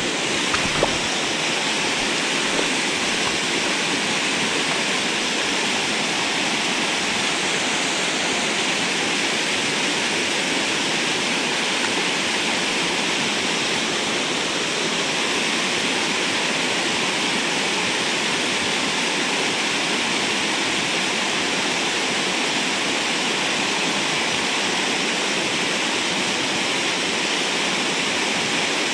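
Waterfall pouring into a pool: a steady, even rush of falling water that does not change.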